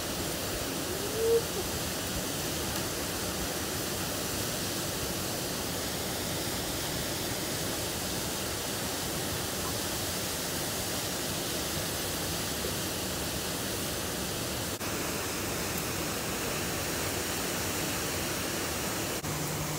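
Steady rush of water from a dam release jet pouring into the river. There is one brief rising squeak about a second in.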